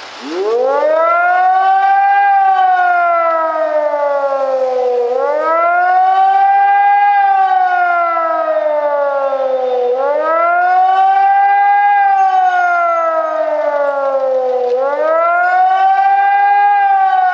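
Civil-defence warning siren starting up and sounding the rising-and-falling wail of the German public warning signal during a test alarm. It rises in pitch for about two seconds and falls for about three, over and over.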